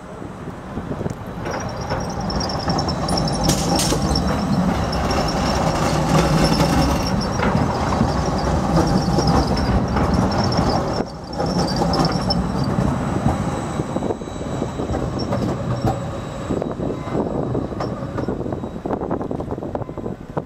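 A Basel Siemens Combino tram passing close by on curved track, with a steady rumble of wheels and running gear. A thin high wheel squeal sounds over the first half as it takes the curve, and the rumble eases toward the end as it moves off.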